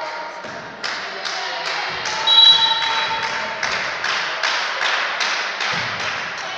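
Steady rhythmic hand clapping in a sports hall, about two and a half claps a second, with a brief high-pitched sound about two seconds in.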